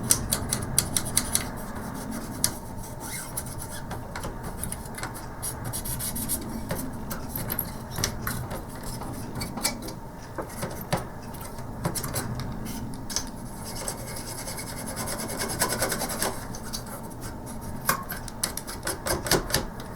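Scrubbing and rubbing across a ZX Spectrum +2A circuit board as it is cleaned with isopropyl alcohol: a continuous scratchy rubbing with many small clicks and taps.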